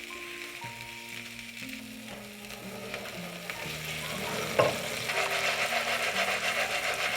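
Food frying in hot oil in a pan, sizzling. The sizzle swells about halfway in, just after a sharp knock, and is loudest near the end.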